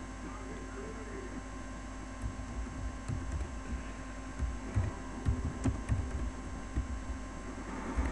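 Steady electrical hum, joined from about two seconds in by irregular low thumps and a few faint clicks.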